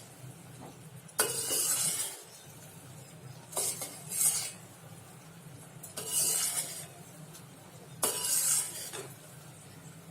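A spoon stirring apple pieces in thick sugar syrup in a pan, scraping the pan in four strokes about two seconds apart over a low steady hum. The syrup is cooking down to a thick murabba.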